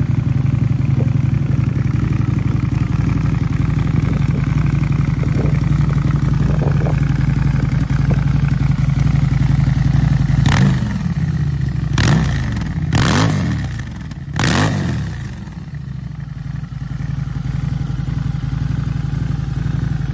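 Harley-Davidson V-Rod Muscle's liquid-cooled V-twin idling through an Akrapovič exhaust, with four quick throttle blips, each rising and falling, starting about ten seconds in and spread over four seconds, before it settles back to a steady idle.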